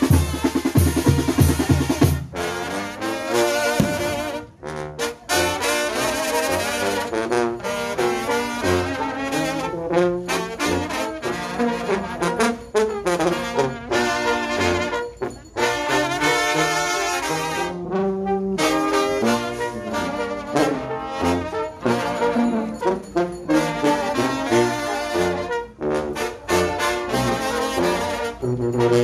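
Mexican brass banda playing: drums alone for about the first two seconds, then trumpets and trombones take up the melody over a low bass line.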